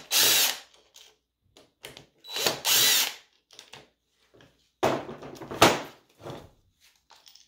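Cordless drill-driver backing Phillips screws out of a Bosch starter's solenoid, in three short runs with pauses between them.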